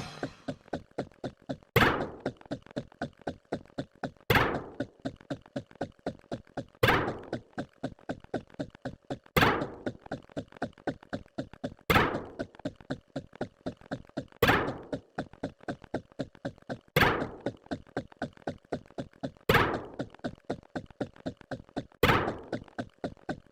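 Counting sound effects: a steady run of short clicks, about four a second, with a louder, longer hit landing every two and a half seconds, nine times.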